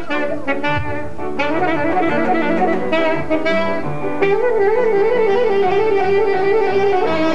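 Music: a melody over accompaniment, with a long, wavering held note from a little past halfway.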